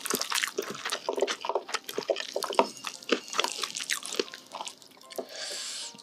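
Close-miked wet chewing and mouth sounds of someone eating: many quick, irregular smacks and clicks, with a short hiss about five seconds in.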